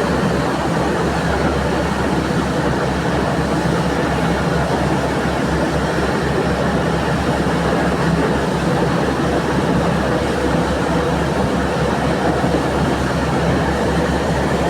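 Surfer crew boat's engines running steadily and loudly, an even machine noise with a fast low pulsing throughout.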